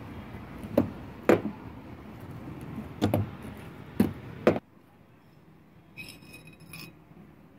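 Rusty steel frame of a foot air pump knocking and clanking on a wooden table as it is handled: five sharp metallic knocks. After a sudden drop in level, a few faint light clicks and a rattle follow near the end as the piston rod and its rubber cup are handled.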